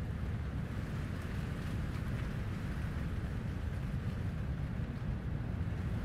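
Steady coastal wind with a low rumble, over the continuous hiss of distant surf breaking on the beach.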